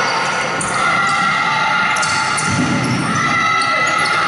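Basketball bouncing on a hardwood gym floor during play, echoing in a large hall.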